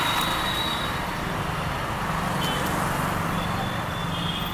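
Steady roadside traffic noise, with no single event standing out.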